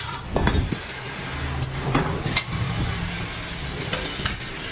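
A steady low machine hum, with a few sharp metal clinks from a steel wire spring collar, pliers and mandrel rod being handled at a bench vise.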